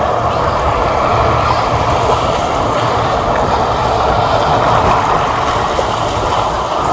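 Boat engines running steadily under a loud, even rushing noise.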